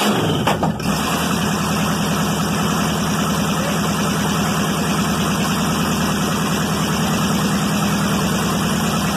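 Chevrolet 305 small-block V8 running steadily at idle with an even firing beat, on its first start in years.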